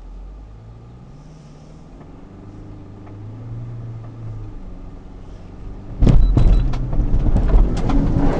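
New Land Rover Defender's engine pulling steadily up a steep rutted clay hill, its note rising slowly. About six seconds in the sound gets suddenly much louder, a heavy rumble with a run of knocks and thumps as the car jolts over the ruts near the top.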